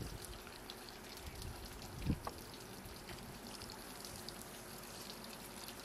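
Steady outdoor background hiss with faint scattered ticks, and one soft low thump about two seconds in.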